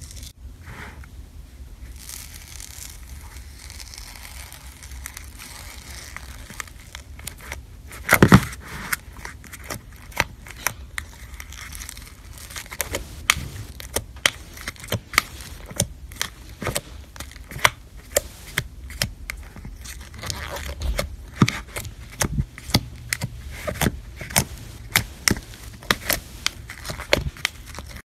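Slime being poked and squeezed by hand, its trapped air pockets popping with sharp clicks and crackles. There is one loud pop about eight seconds in, and the pops come thick and fast for the second half.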